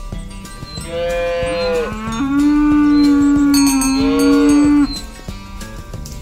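A cow mooing: one long, loud moo that starts about a second in and breaks off sharply near five seconds. Its pitch wavers at first, then holds steady. Background music with a steady beat plays underneath.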